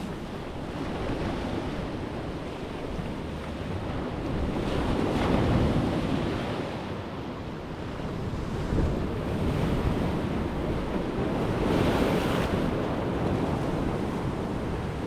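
Ocean surf breaking on a sand beach, the wash swelling and easing every few seconds, with wind buffeting the microphone.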